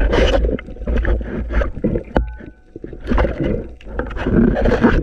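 Water rushing and sloshing around an underwater camera as the diver moves, coming in uneven loud surges with a deep rumble. There is one sharp click about two seconds in.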